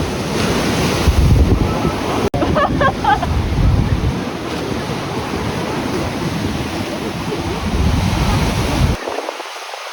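Ocean surf washing on a beach, with wind blowing across the microphone. The low wind rumble drops away near the end.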